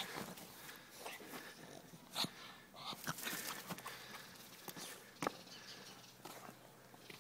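Petit brabançon, a small dog, playing on grass and fallen leaves: faint rustling and scuffling with a few brief sharp sounds about two, three and five seconds in.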